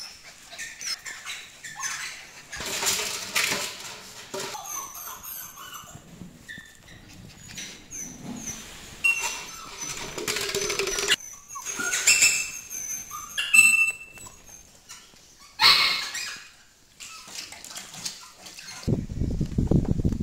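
Border Collie puppies playing on a tile floor: irregular scuffling and scrabbling, with an empty plastic bottle crackling and knocking as a puppy pushes it about.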